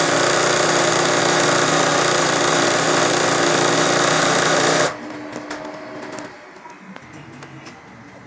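Sewing machine running steadily as it stitches free-motion embroidery through hooped cloth, cutting off abruptly about five seconds in. After that only faint clicks and handling noises remain.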